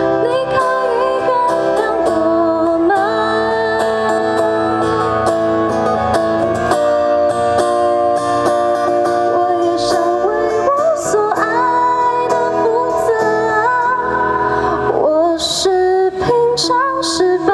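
Live band music: a slow song with guitar and held, gliding melody lines, and a few sharp cymbal-like strokes near the end.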